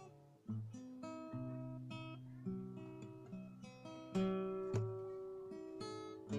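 Background music: acoustic guitar playing plucked notes that ring and fade one after another.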